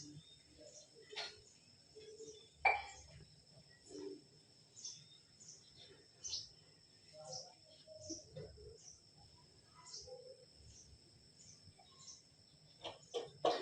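Outdoor nature ambience: a steady high insect drone with short chirps repeating about once or twice a second, and faint scattered lower calls and noises.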